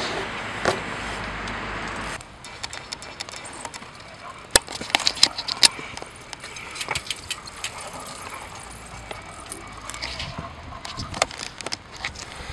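Electronic dance music for about the first two seconds, cutting off abruptly. Then open-air ambience with scattered sharp clicks, knocks and light metallic rattling as a BMX bike is handled close up.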